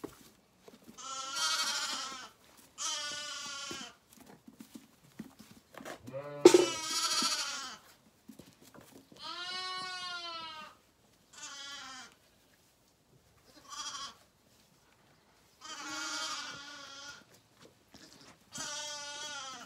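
Zwartbles lambs bleating again and again, about eight wavering calls of a second or so each, some higher and some lower, with short pauses between them.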